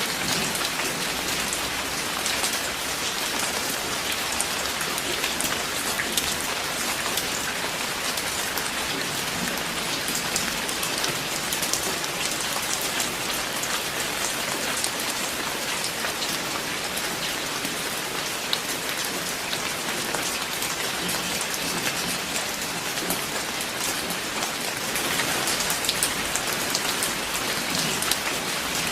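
Steady rain falling, a dense patter of individual drops hitting a surface.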